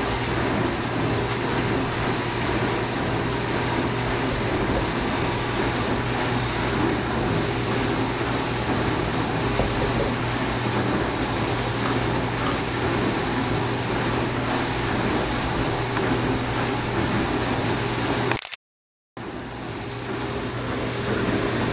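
Dishwasher running: a steady hum with a low drone and a wash of noise, broken once by a brief silence near the end.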